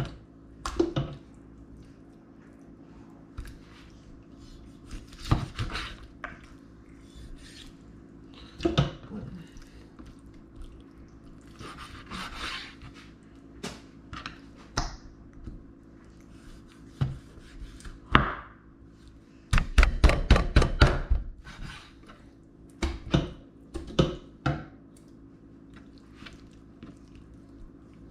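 Kitchen knife cutting up raw chicken on a cutting board: scattered knocks and scrapes, then a quick run of about a dozen chops a little past two-thirds through.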